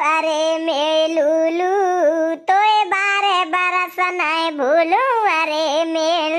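A high-pitched singing voice carrying a song melody, with a short break between phrases about two and a half seconds in.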